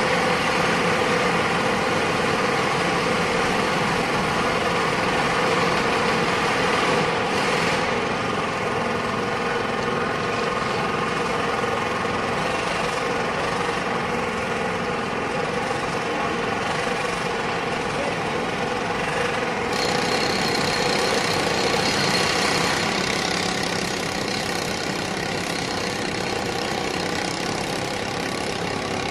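Steady loud machinery noise, like an engine running, with a dense mechanical din throughout. Its character shifts abruptly about 7 seconds in and again about 20 seconds in, as if separate clips were joined.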